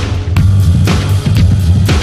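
Background music with a steady drum beat over heavy bass.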